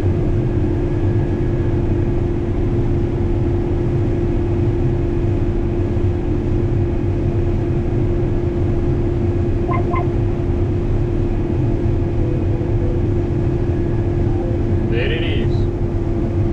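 Combine harvester running steadily while cutting corn, heard from the cab: a constant deep rumble with a steady hum. A quick double beep about ten seconds in, and a brief higher-pitched sound near the end.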